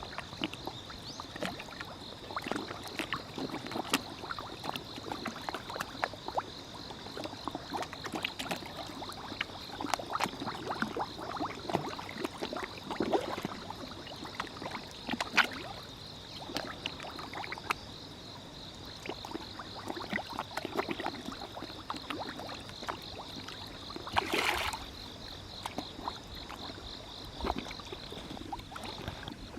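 Many koi feeding at the water's surface: a continuous, irregular patter of small splashes, slurps and gulps as they suck down floating feed, with one bigger splash about two-thirds of the way through. A steady insect trill runs underneath.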